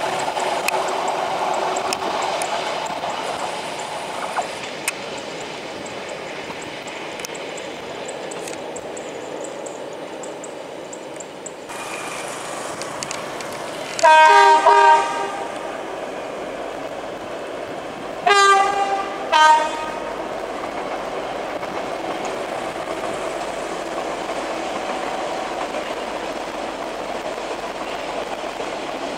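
Rail noise of a passing train fades away. Then a Vietnam Railways diesel locomotive sounds its horn, a chord of several tones: one long blast about halfway through, then two short blasts a few seconds later, as it rolls past with steady wheel and engine noise.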